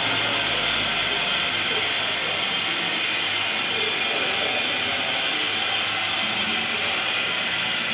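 A steady, even hiss with no distinct events, strongest in the upper range.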